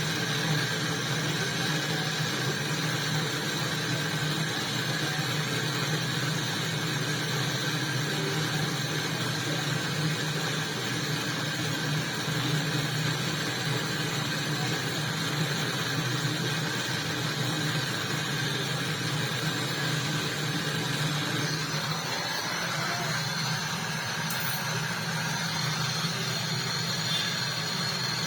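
Steady hum of an electric motor running continuously, with a strong low drone and several steady higher tones.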